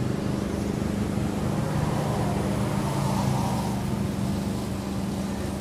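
Steady low mechanical hum, like a motor running.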